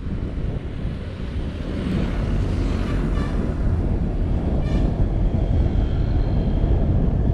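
Road and traffic noise heard from a moving car on city streets: a steady low rumble of tyres and engines that grows louder about two seconds in.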